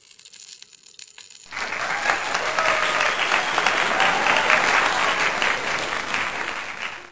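A crowd applauding, the clapping starting suddenly about a second and a half in and fading out near the end.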